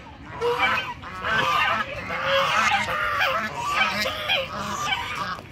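A small flock of white domestic geese honking over and over, their calls overlapping.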